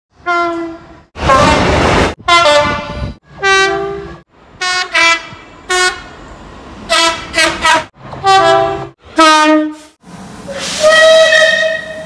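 Rapid series of about ten short British train horn blasts, one after another, several stepping between a high and a low note. A brief burst of rushing noise comes about a second in.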